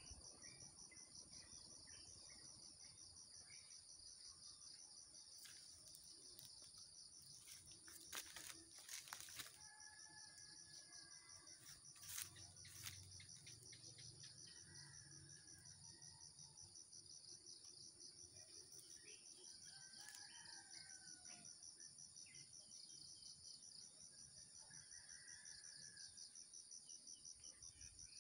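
Faint, steady chorus of insects: a rapidly pulsing high trill under a higher, even drone. Faint bird calls come now and then, and a few sharp clicks fall around eight and twelve seconds in.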